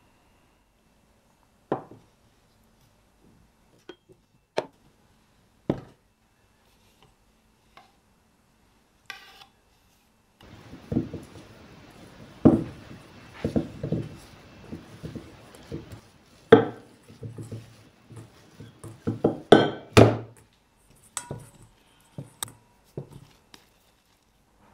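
Kitchen handling sounds: a few sharp clinks and knocks, then from about ten seconds in a denser run of knocks, thumps and scrapes as a stainless steel mixing bowl of risen dough is handled on a wooden board.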